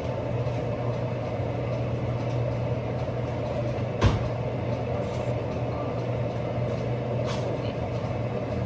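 A steady hum and hiss in a kitchen where onions have just gone into hot oil, broken by one sharp knock about four seconds in and a softer one near the end.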